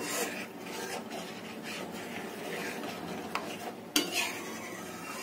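A metal spatula stirring a thin, freshly watered tomato-onion paste gravy in a kadhai, scraping and sloshing round the pan in repeated strokes. About four seconds in, the spatula knocks sharply against the pan.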